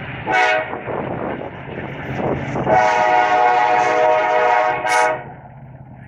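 Norfolk Southern freight locomotive's air horn: a short toot, then a long blast of about two and a half seconds, over the rumble of passing freight cars.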